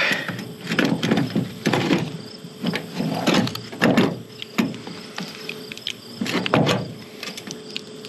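Irregular scraping and clicking of hard parts being handled and worked by hand, a string of short rasping noises about every half second to second.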